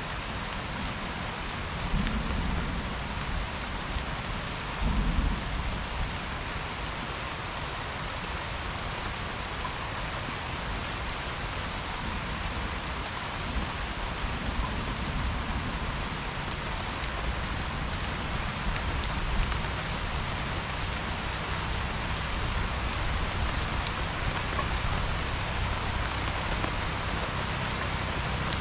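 Steady rain falling, an even hiss, with two brief low rumbles about two and five seconds in.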